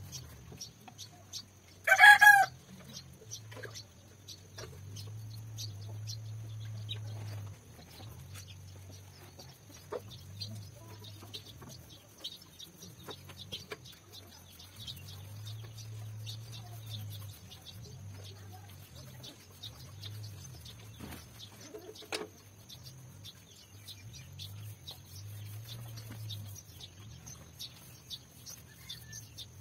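A chicken gives one loud, short call about two seconds in, and a fainter call about twenty-two seconds in. Under them runs a low hum that swells and fades a few times, with faint scattered ticks.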